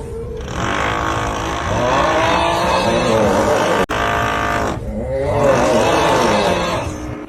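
The 'uuuugghhh' meme sound: a long, drawn-out groaning voice, repeated in a loop over a steady drilling noise. Two long groans, the second starting after a short break about five seconds in, with a brief click about four seconds in.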